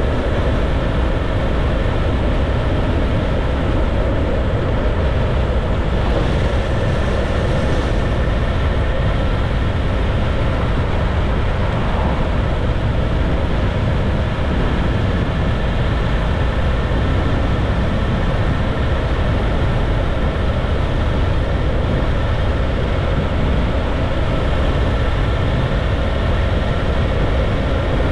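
Motorcycle cruising at a steady speed: its engine runs evenly under a constant rush of wind on the microphone.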